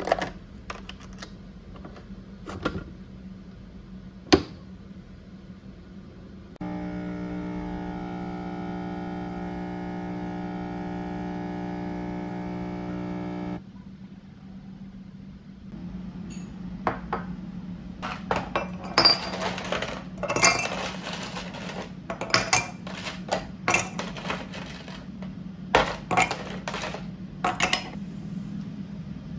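A capsule espresso machine has a capsule loaded and its lever shut with a few clicks, one loud, and then its pump hums steadily for about seven seconds while it brews before cutting off. After that come many glass clinks and ice cubes rattling in a glass mug.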